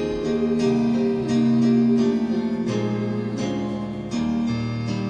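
Instrumental hymn introduction: sustained chords with a melody line, the notes changing every second or so, before the singing begins.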